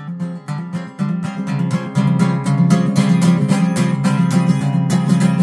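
Acoustic guitar with a capo, strummed chords played as a song intro, getting louder and busier about two seconds in.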